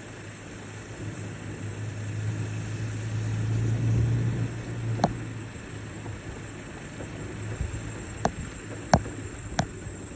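A steady low motor hum that swells to its loudest about four seconds in and then eases off, with four sharp clicks or knocks in the second half.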